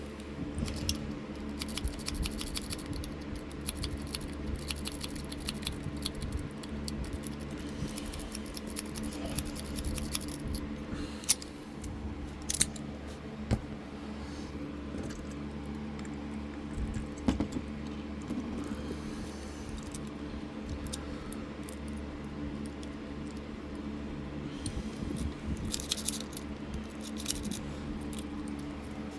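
Thin spring-steel lock-pick rake being worked in the keyway of a Master Lock padlock, giving irregular light metal clicks and scratchy scraping in bursts as the pins are raked, over a steady low hum.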